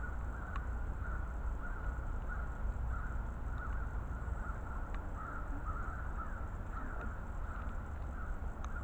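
A flock of distant birds calls continuously over a low steady rumble, with a few faint clicks.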